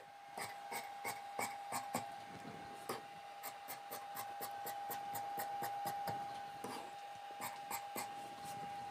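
Scissors cutting through cotton fabric: quick, irregular snips, several a second, over a faint steady whine.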